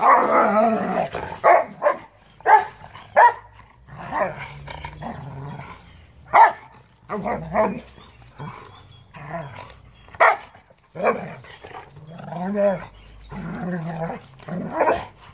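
Two dogs play-fighting, giving repeated short sharp barks and yips, with growls in the second half.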